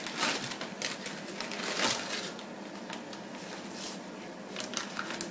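Wrapping paper rustling and tearing in irregular crackles as a dog rips open a present.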